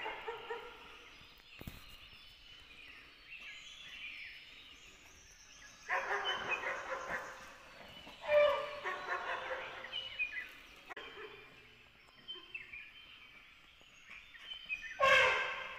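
Dogs barking in repeated bursts separated by quieter stretches, with the loudest bursts about eight seconds in and near the end.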